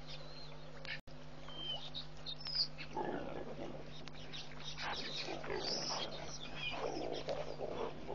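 A herd of African elephants at a waterhole making rough, growling calls that come and go from about three seconds in. Birds chirp briefly here and there over a steady electrical hum.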